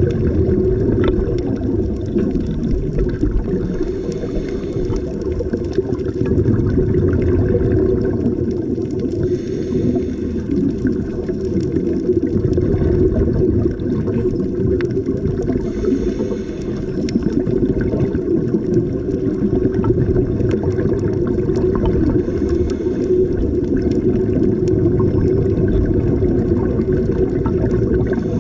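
Underwater scuba ambience: a steady low rumble of water with scattered crackles, and a short hiss from a scuba regulator breath recurring about every six seconds, with divers' exhaled bubbles.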